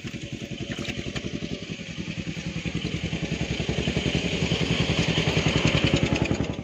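A small engine running with an even, rapid pulse, growing steadily louder, then stopping abruptly at the end.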